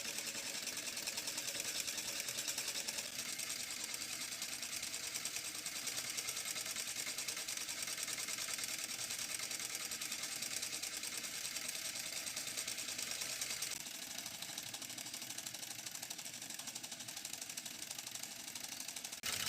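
Homemade Stirling engine made from cans and PVC pipe, running steadily with a rapid mechanical clatter, a little quieter about two-thirds of the way through.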